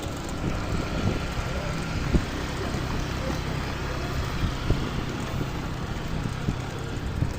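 Street traffic with engines running steadily nearby, and wind buffeting the microphone as it moves along on a bicycle.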